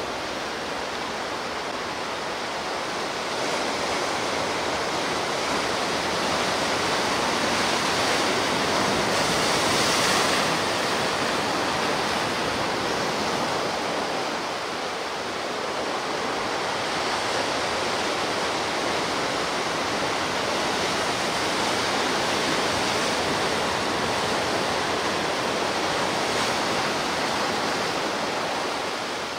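Sea waves breaking and washing in a continuous rush, swelling gently in loudness about ten seconds in and easing again a few seconds later.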